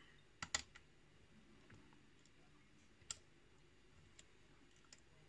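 Sparse, faint metallic clicks of a lock pick working the pins of a KIK cylinder: a quick pair about half a second in, a sharper click around three seconds, and a couple of lighter ticks later.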